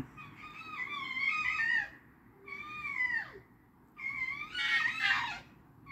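Red fox calling: three long, wavering, whining cries, each dropping in pitch at its end, with a fourth starting at the very end.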